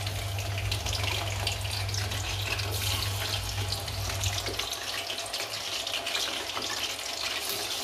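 Chicken pieces lightly frying in hot oil in a steel karahi: steady sizzling with a dense crackle. A low hum underneath stops about halfway through.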